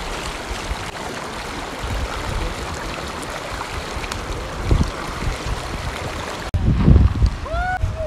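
River water rushing and splashing over flat rock in a shallow stream, with low wind rumble on the microphone. About six and a half seconds in, the sound cuts to louder wind rumble with a few short whistle-like tones.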